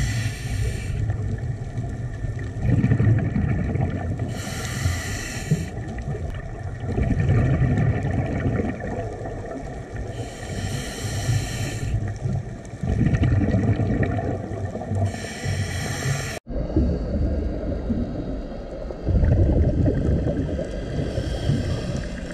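Scuba diver breathing through a regulator underwater: a hissing inhalation roughly every six seconds, each followed by a low, bubbling rush of exhaled air, over a constant underwater rumble.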